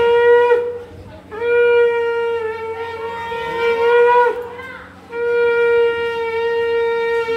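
Conch shell (shankha) blown in long blasts, each held on one steady note. One blast ends just after the start, a second lasts about three seconds, and a third begins a little past halfway. It is sounded as the auspicious call of the ritual.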